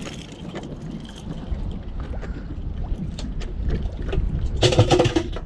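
Wind on the microphone and water against a small boat, with scattered knocks and a short, loud rattling burst near the end.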